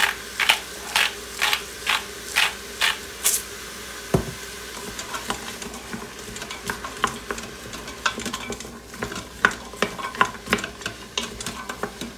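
Himalayan pink salt grinder twisted over the pot, clicking about twice a second for the first three seconds. Then a knock, and a spoon stirring sautéing vegetables in the Instant Pot's stainless steel insert, scraping and clicking against the metal over a faint sizzle.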